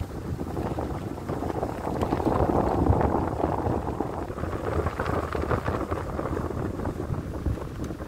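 Car rolling slowly along a snow-covered street: a steady rough, crackly rushing of tyres in snow mixed with wind on the microphone, swelling a little in the middle.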